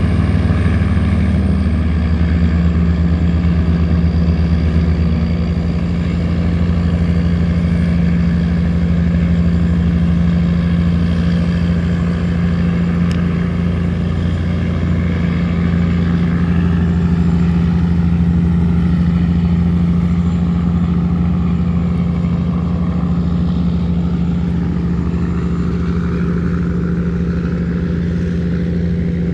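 Tugboat diesel engine running steadily under load, a deep, even note, as it tows cargo barges upstream against the current.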